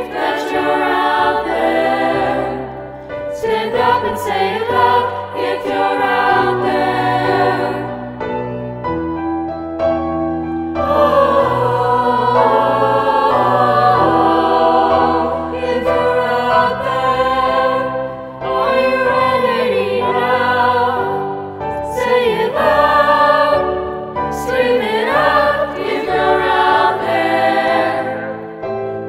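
Mixed youth choir of girls' and boys' voices singing a slow song in parts, the separately recorded voices blended together, phrase after phrase with short breaths between.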